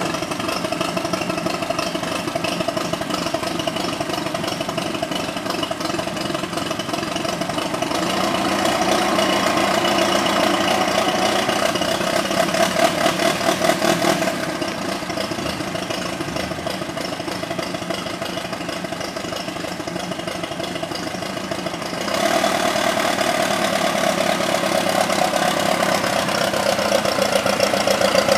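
Vintage four-cylinder engine of the Jack Ford Special, a Ford-based speedster, idling steadily, then running louder about three-quarters of the way through as the car drives off.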